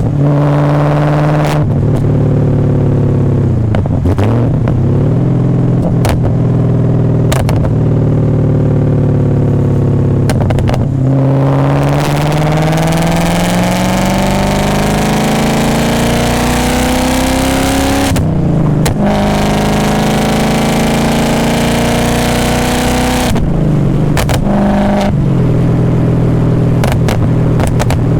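BMW E39 540i's 4.4-litre V8 heard through a custom straight-pipe exhaust into a Summit Racing muffler, on a drive. In the first half the revs rise and fall; then the engine pulls hard with its pitch climbing steadily, dropping sharply at an upshift about two-thirds in and again near the end. A few sharp knocks are heard along the way.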